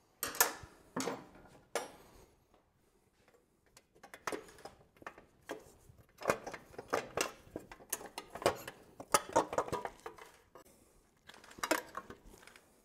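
Irregular metallic clinks, clicks and taps of a wrench and the steel fasteners and chrome nacelle parts of a Harley-Davidson Road King being worked loose and handled, busiest about halfway through.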